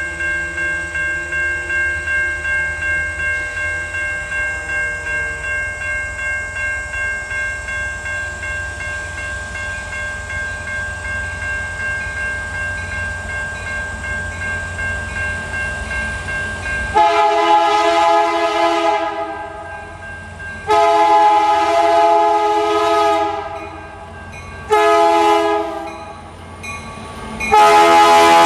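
Diesel-electric freight locomotives rumble under a steadily pulsing ringing tone, like a bell. About two-thirds of the way in, the lead locomotive's air horn sounds long, long, short, long: the standard grade-crossing warning. The last blast is still sounding at the end.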